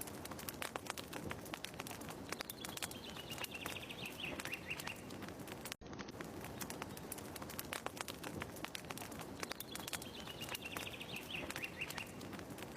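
Fireplace crackling, a dense run of small snaps over a steady hiss, looped about every seven seconds with a brief dropout about six seconds in. A bird's descending trill sounds twice, once in each pass of the loop.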